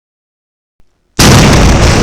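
Explosion sound effect: silence, then a sudden, very loud blast a little over a second in, with a deep rumble that carries on.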